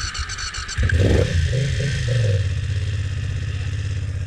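Motorcycle starter cranking the engine, which catches about a second in, revs briefly and settles into a steady idle. It is a hesitant start after a humid night outdoors, to which the owner says this bike is very sensitive.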